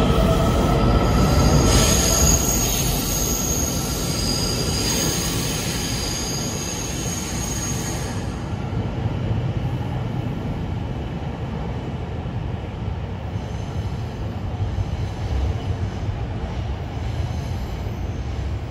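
Taiwan Railway train running along the track, its wheels squealing on the rails over a steady rumble. The high squeal stops about eight seconds in, and the rumble slowly fades.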